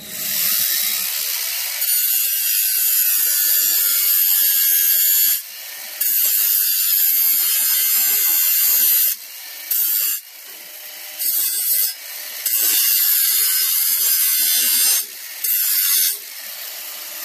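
Grinder worked against the steel sheet metal of a VW bus body: a loud, hissing grind in several passes, with short breaks between them as it is lifted off and set back on.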